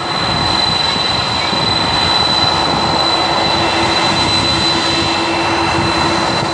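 Boeing 747's four jet engines running loud and steady, a high steady whine over a broad rush.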